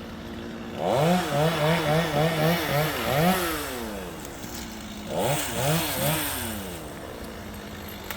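Gas chainsaw idling, then revved up and down in quick repeated pulses for about three seconds, and again briefly about five seconds in, as it cuts out small dead branches.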